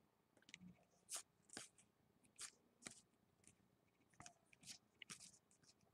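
Faint, scattered soft clicks and rustles of trading cards being slid and flipped through by hand, about a dozen short strokes.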